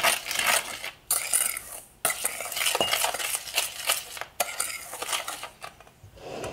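Metal spoon stirring a dry flour-and-sugar mixture in a stainless steel mixing bowl, scraping against the bowl in quick strokes, with a few brief pauses.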